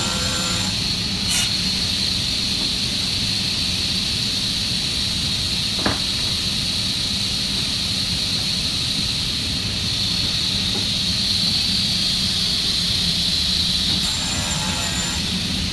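Altendorf WA80 sliding table panel saw running, its blade spinning with a steady high whine over a low hum, while a sheet of birch plywood is fed along it to be cut. There is one faint click about six seconds in.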